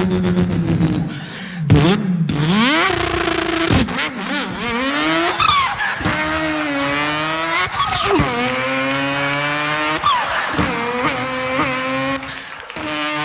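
A man imitating a racing car's engine with his voice: the pitch climbs as if revving through the gears, drops sharply at each shift and climbs again, several times over.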